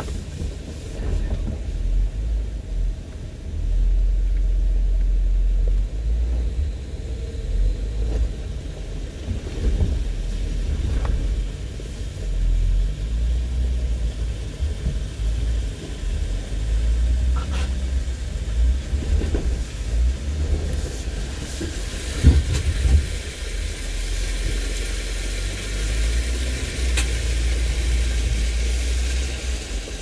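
Off-road vehicle engine running close beneath a hood-mounted camera, a low uneven rumble; the vehicle idles and then moves forward along the trail.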